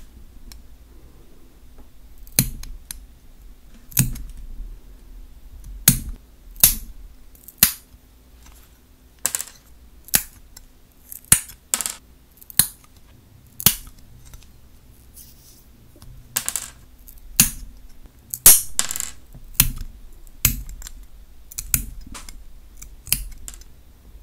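Steel nail clipper snipping through long gel nail extensions, cutting them down: about twenty sharp snaps, irregularly spaced a second or two apart.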